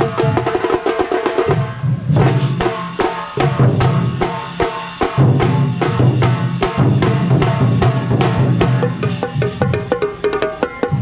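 Kerala thambolam percussion troupe drumming a fast, dense dance rhythm with heavy low drums. A pitched tune carries over the drumming.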